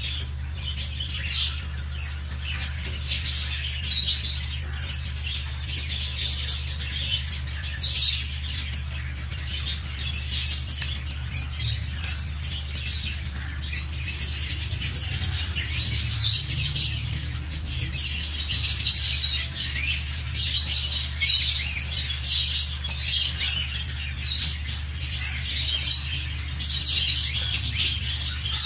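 Young ducks peeping: many short, high-pitched calls repeated continuously, over a steady low hum.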